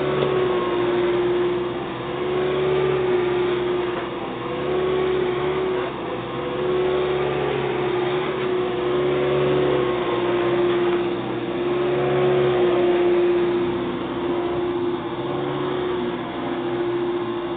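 Hoover Dimension 1000 upright vacuum cleaner running, a steady motor whine over the brush rolls, swelling and easing about every two seconds as it works across the floor.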